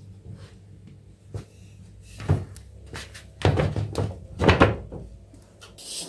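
A folding wooden clothes drying rack being handled and set up, giving a series of short wooden knocks and clunks. The loudest come about two, three and a half, and four and a half seconds in.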